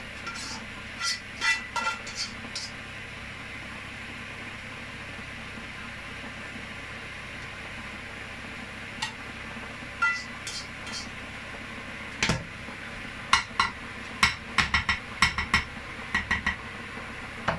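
A spatula scraping and tapping against a glass Pyrex dish and a metal wok as a minced-beef and vegetable filling is moved and patted down. There are a few light clinks at first, then a stretch of steady background hiss. Over the second half come a run of sharp taps and clinks, with one louder knock about twelve seconds in.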